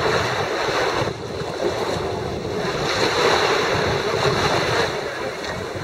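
Rushing outdoor noise of wind on the microphone and water washing at the shore, uneven and gusty, easing briefly about a second in.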